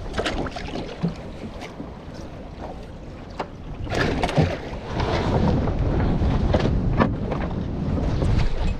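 Wind buffeting the microphone and water moving around a small fishing boat, with scattered knocks; it grows louder about halfway through.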